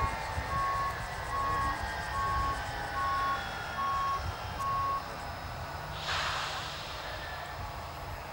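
Regular electronic beeping, about three beeps every two seconds, that stops about five seconds in, over the falling whine of the BAC Lightning F.6's Rolls-Royce Avon turbojets running down. A short hiss comes about six seconds in.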